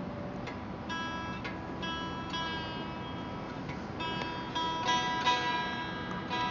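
Squier Mini Stratocaster electric guitar with single strings picked and left to ring, a note or two at a time, as it is being tuned. The first notes come about a second in, and several more ring together later, a little louder near the end.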